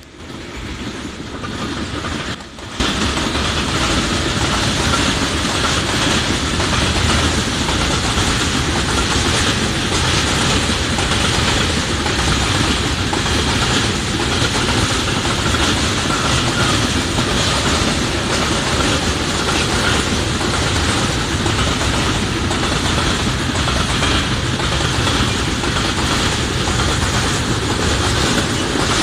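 Freight train of tank wagons rolling past, wheels clattering over the rails in a steady, dense rumble. It builds over the first few seconds, then holds at a constant loud level.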